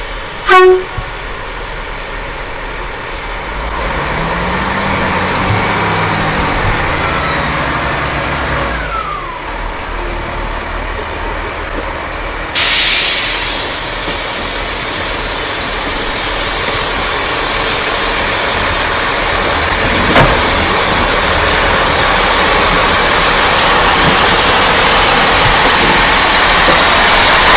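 A Northern Class 158 Express Sprinter diesel unit moving slowly towards and past, its engine sound growing louder towards the end. A short, loud pitched blast comes about half a second in, and a sudden hiss starts about 13 seconds in.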